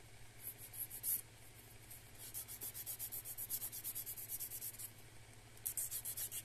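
A 180/100-grit nail buffer rubbed quickly back and forth over gel nail tips, making quiet, scratchy rasping strokes, about five a second, in short runs with a brief pause about five seconds in. The buffing roughs up the tip surface so the dip base will adhere.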